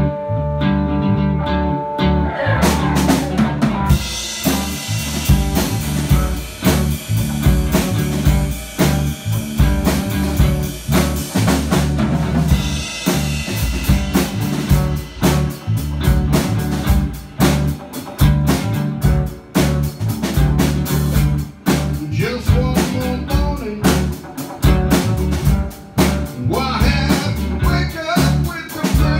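Live rock band playing in a room: an electric guitar holds notes alone for the first two seconds, then the drum kit comes in with cymbals, snare and kick, and the full band plays on with a steady beat.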